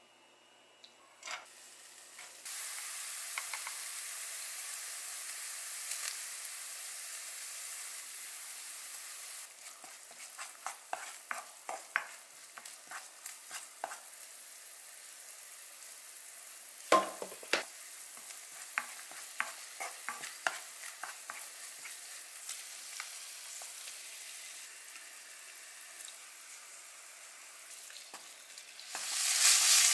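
Oil sizzling in a nonstick wok as green onion and chili flakes fry, with a wooden spoon stirring and clicking against the pan. There is one louder knock partway through. Near the end the sizzle jumps much louder as strips of raw pork go into the hot oil.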